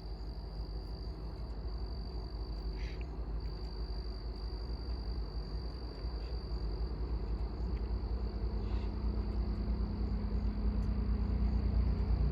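Low rumble that grows steadily louder, over a steady high-pitched insect trill that drops out about seven seconds in.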